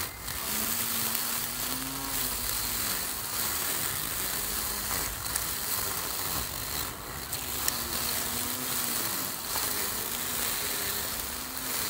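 Cordless battery-powered string trimmer running as its spinning line cuts tall grass. The motor's hum sweeps up and down in pitch every second or so as the load changes, over a steady hiss.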